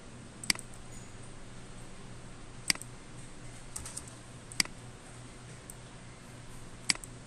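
Four sharp, separate clicks about two seconds apart from a computer keyboard and mouse, with a few fainter clicks between, over a low steady hum.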